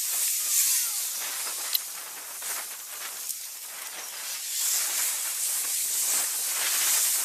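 Steady high hiss of outdoor street ambience along a shopping road, growing a little louder about four and a half seconds in.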